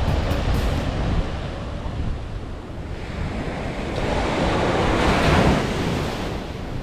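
Sea waves washing onto a beach, one wave swelling and breaking about five seconds in, with wind buffeting the microphone.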